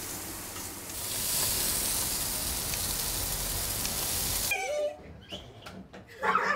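Pork belly sizzling on the hot grill plate of a portable gas grill, a steady hiss that stops suddenly about four and a half seconds in. Faint clinks and a short voice follow near the end.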